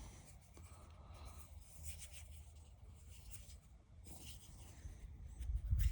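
Faint rubbing and handling noises from hands moving pocket knives and the handheld recording device, with louder low bumps and rubbing near the end.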